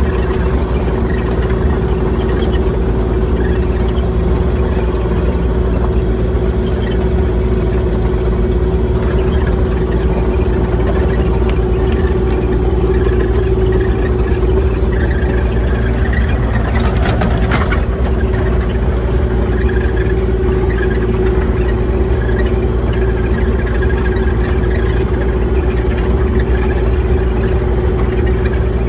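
Excavator's diesel engine running steadily, with a constant hum, and a brief rattle about two-thirds of the way in.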